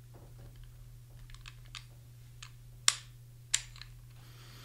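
Light metallic clicks and ticks of a Colt 1903 Pocket Hammerless pistol being handled as its barrel is turned for takedown, with two sharper clicks about three seconds in, roughly half a second apart.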